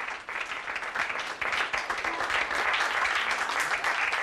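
Audience applauding by hand, the clapping growing a little louder about a second in and holding steady.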